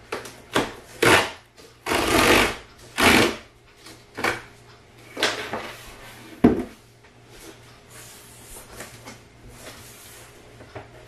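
Large cardboard box being unpacked: a run of short scraping and sliding noises as the printed outer cardboard sleeve is pulled up and off the shipping box, with one sharp knock past the middle, then softer cardboard rustling.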